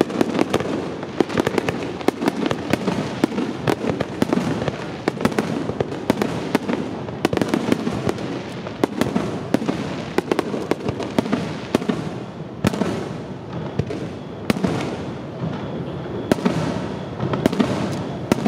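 Aerial fireworks bursting in a dense barrage, many overlapping bangs a second over a continuous rumble.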